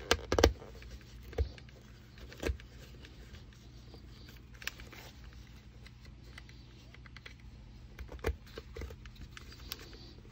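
Clips and webbing of a clip-in M1 helmet liner suspension clicking and knocking against the inside of a steel M80 helmet shell as they are fitted by hand. A cluster of sharp knocks comes at the start, single ones follow about a second and a half, two and a half and eight seconds in, with light ticks between, over a faint steady hum.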